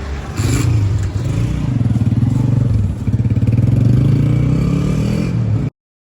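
A vehicle engine running close by with a fast, even pulse, its pitch rising and falling slightly; it cuts off abruptly near the end.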